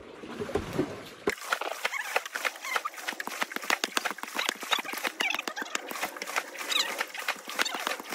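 Fast, irregular clatter of stone knocking on stone, a plant being pounded into powder to use as fish poison.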